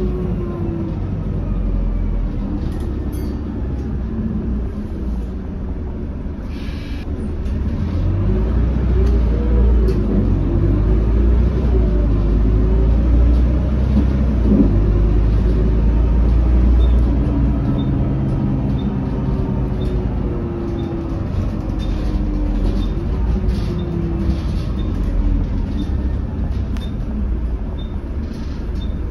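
Volvo B12BLE bus heard from inside the passenger cabin while driving: the rear-mounted diesel engine runs with a steady low rumble, its note rising and falling as the bus accelerates through the middle stretch, then easing off. Body rattles and a faint regular tick sound over it in the second half.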